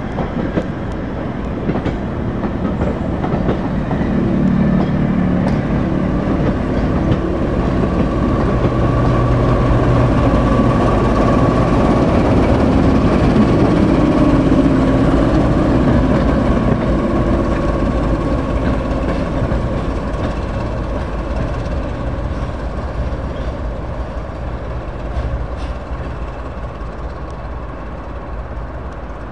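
Class 08 diesel shunter's English Electric six-cylinder engine running as the locomotive hauls coaches slowly past. It grows louder to a peak about halfway through as the locomotive passes close, then fades away.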